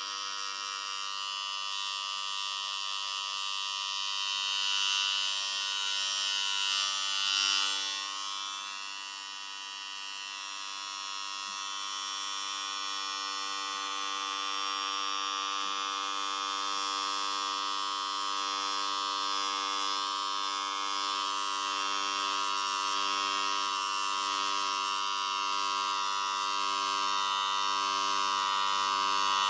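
Electric hair clippers buzzing steadily, with louder swells around 4 to 8 seconds in as the blades meet the hair.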